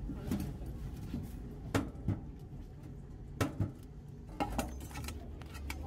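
Stainless steel bowl knocking and clanking against a stainless steel sink as it is handled and tipped. The knocks come at irregular times, the loudest just under two seconds in and about three and a half seconds in.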